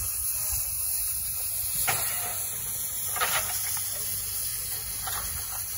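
Steam locomotive at a stand hissing steam steadily, with a few brief louder gusts of hiss about two, three and five seconds in.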